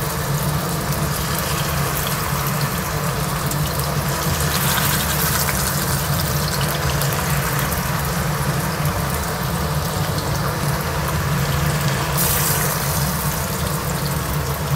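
Marinated fish steaks frying in hot oil in a pan: a steady sizzle with small crackles and pops.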